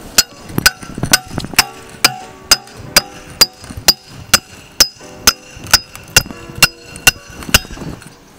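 A hammer striking a steel bar driven into a catalytic converter, about two sharp ringing metal-on-metal blows a second, knocking out the ceramic honeycomb core to gut the converter.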